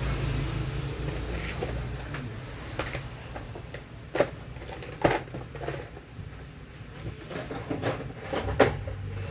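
Small metal tools and parts clinking and knocking as they are handled and put away on a workbench, in scattered sharp clicks, with a low steady hum over the first couple of seconds.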